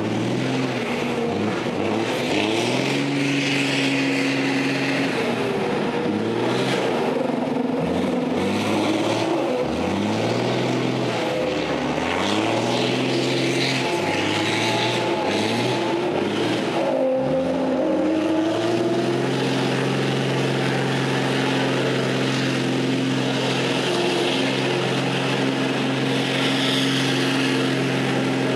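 Kamaz Dakar rally truck's diesel engine revving hard while it drifts on wet tarmac, the revs repeatedly rising and dropping, then held steady and high for about the last ten seconds as it spins circles. A steady hiss of spinning, spraying tyres runs underneath.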